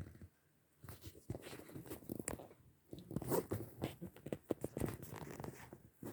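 Irregular clicks, light knocks and rustling, as of small objects being handled, densest through the middle of the stretch.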